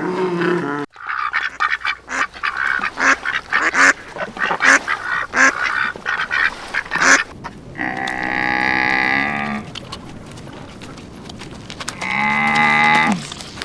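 Ducks quacking in a quick run of short calls for several seconds. Then come two longer drawn-out animal calls, about four seconds apart.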